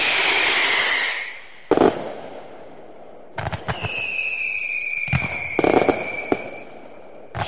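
Fireworks going off: sharp bangs and crackling bursts, with a long whistle from about four seconds in to near the end that slowly falls in pitch.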